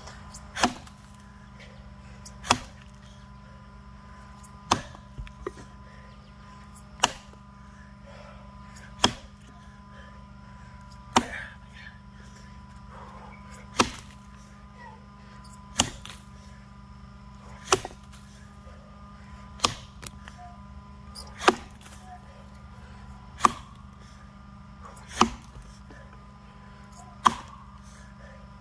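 Axe blows chopping into a large box elder log, a sharp thwack about every two seconds, fourteen strikes in all.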